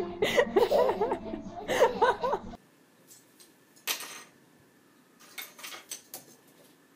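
A young child's voice over music that cuts off abruptly about two and a half seconds in. After it come a few light clinks and rustles as a cat paws at the ornaments of a small Christmas tree, with one short burst near four seconds and a cluster of clicks about a second later.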